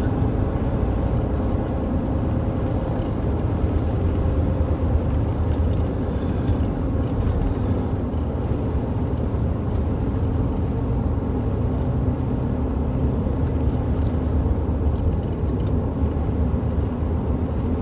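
Steady engine and road noise inside a moving vehicle cruising at an even speed.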